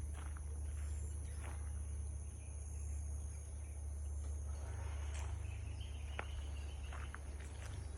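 Wind rustling through forest tree leaves, a soft steady hiss that swells about halfway through and almost sounds like rain. Insects make a steady high drone, and there are a few light ticks.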